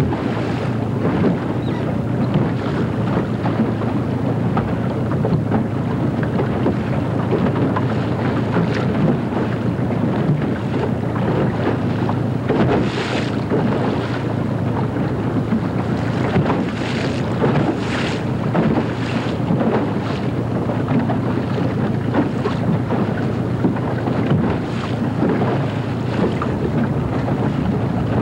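Steady wind buffeting the microphone on a boat on open, choppy water, with water rushing and a few brief louder swishes in the second half.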